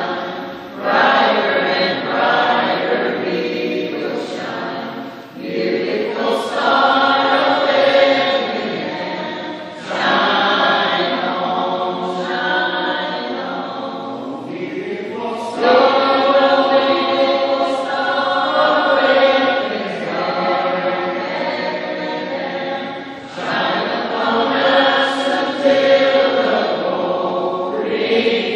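Mixed choir of men and women singing together, in sung phrases of a few seconds each with short breaks between them.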